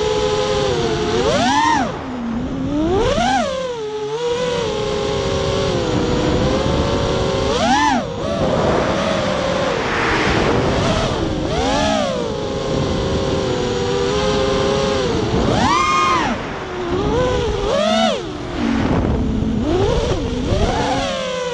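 Fury FPV racing quadcopter's brushless motors and propellers whining in flight, the pitch surging up and dropping back several times as the throttle is punched and eased.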